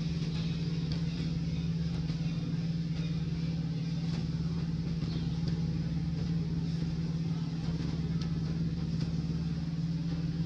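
A steady low mechanical hum that does not change in pitch or level, with faint scattered high ticks over it.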